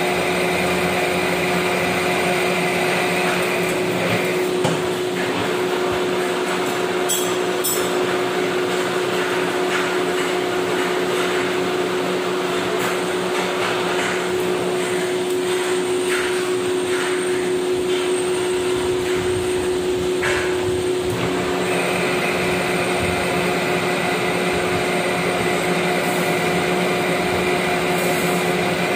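Metal lathe running steadily as it turns a steel shaft during thread cutting, a constant machine hum with a steady tone. Part of its whine drops away about four seconds in and comes back about two-thirds of the way through.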